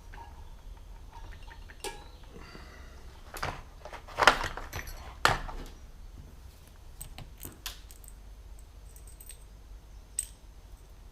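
Small metal parts and hand tools clinking and rattling in a string of sharp clicks, loudest in a cluster about four to five seconds in.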